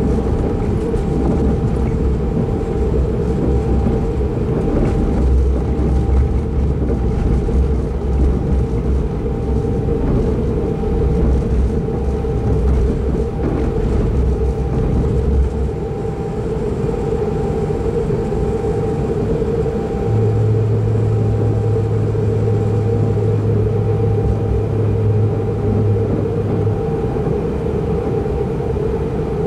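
Running noise inside a Pendolino train's passenger cabin at speed: a steady rumble of wheels on rails under a constant mid-pitched drone. A deeper hum joins for several seconds past the middle.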